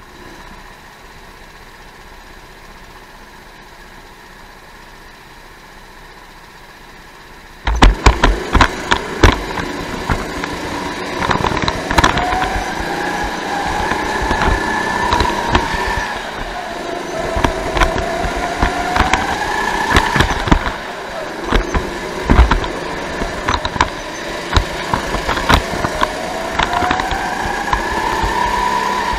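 Onboard sound of a Sodi racing go-kart at speed: its engine pitch rises over a couple of seconds as it accelerates, then drops as it lifts for the corners, again and again, with frequent sharp knocks over it. For the first eight seconds there is only a faint steady hum, then the sound jumps suddenly to loud.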